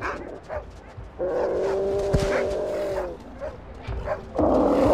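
Stray dogs barking sharply at South American sea lions, which answer with a long, steady call lasting about two seconds and another loud, shorter call near the end.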